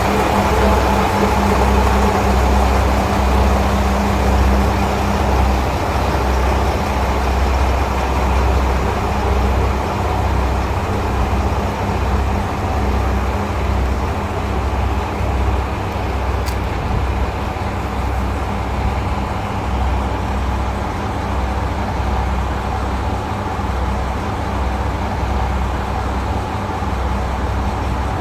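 Diesel engines of a KiHa 185 series limited express railcar running, a steady low rumble. A hum in it fades out several seconds in, and the overall level eases slightly.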